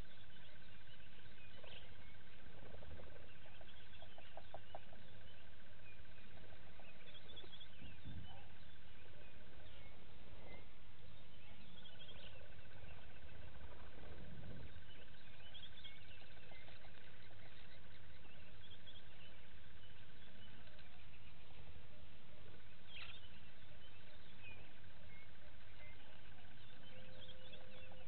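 Bushveld outdoor ambience: scattered short bird chirps and calls, over a steady high-pitched trill that runs in long stretches of about nine seconds with brief breaks between them.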